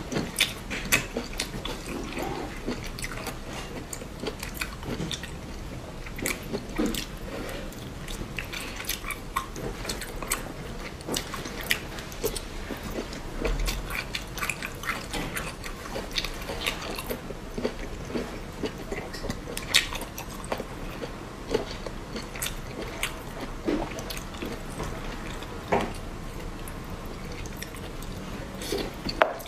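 A person eating spicy snails: wet chewing, sucking and smacking as the snail meat is pulled and sucked from the shells, with irregular sharp clicks.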